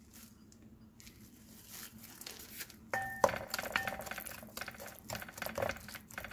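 A wooden spatula knocking and scraping against a glass mixing bowl while stirring a thick mayonnaise and cheese mix. There is one ringing clink about three seconds in, then a quick run of scrapes and taps.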